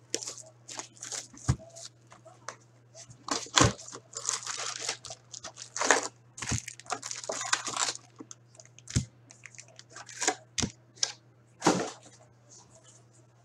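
Plastic shrink wrap torn off and crinkled on an Upper Deck Series 1 hockey card box. The foil packs are then pulled out and set down in stacks, with crinkling and about six soft knocks against the table.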